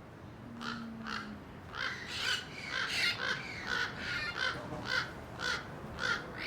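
Crows cawing in a steady series, about two harsh caws a second, starting just under a second in, while they harass green parakeets.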